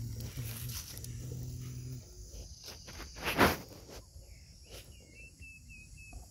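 Soil being scraped up by hand and dropped into a plastic toy dump truck, with one loud rough scrape about three and a half seconds in. A low steady hum runs for the first two seconds, and a short run of high chirps comes near the end.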